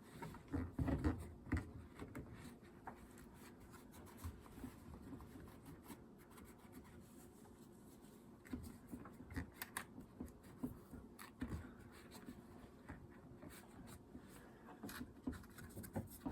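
Irregular scraping, rubbing and light clicking on the plastic air filter housing of an Echo CS-310 chainsaw as it is cleaned out by hand, with a cluster of louder knocks about a second in.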